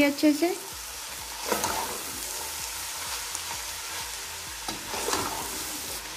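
Shredded cabbage, carrot and chicken sizzling in a pan while being stirred with a slotted metal spoon, with louder stirring swishes about one and a half seconds in and again near five seconds.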